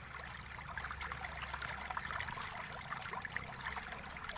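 Steady background hiss and low hum, with light scattered clicks and rustling of fingers handling the netbook's plastic case and ribbon cables.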